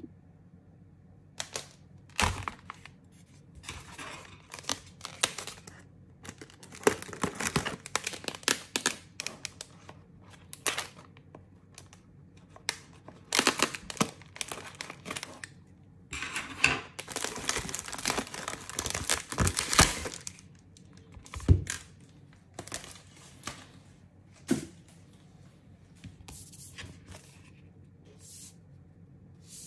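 Plastic air-column cushion packaging crinkling, crackling and tearing as it is cut open with scissors and pulled off a cardboard box. The noise comes in irregular bursts, with the densest, longest run of crinkling a little past the middle, and it turns quieter near the end.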